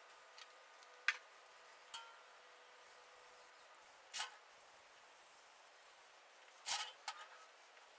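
Scattered sharp clicks and light knocks of hard objects being handled, about five in all with the loudest pair near the end, a couple leaving a brief ringing tone.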